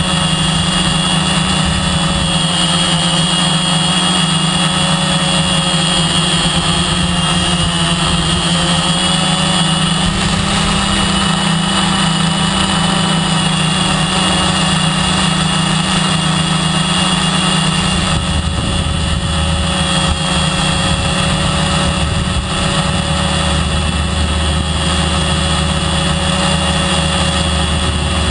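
Quadcopter's electric motors and propellers running steadily in a hover, heard close up from the camera mounted on the drone: a loud multi-tone whine over a low hum, the low hum shifting pitch about two-thirds of the way through.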